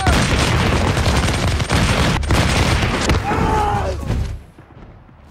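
Massed flintlock musket volleys from a film's battle soundtrack: a dense run of gunfire lasting about four seconds, then falling away suddenly. A man's voice shouts briefly near the end of the firing.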